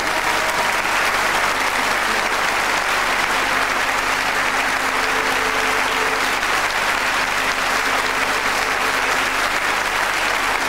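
Large theatre audience applauding, a steady, sustained clapping that holds at an even level throughout.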